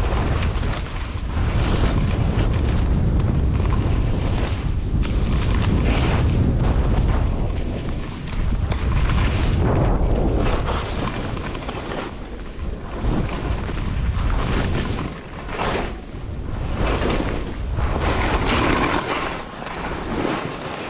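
Wind buffeting the microphone during a fast ski descent, a heavy low rumble, with repeated whooshes in the second half as skis scrape and carve the snow through turns.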